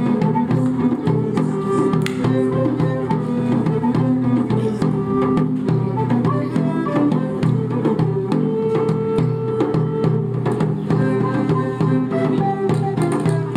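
Live medieval music: a bowed string instrument plays a melody over low held notes, with light regular percussion strokes.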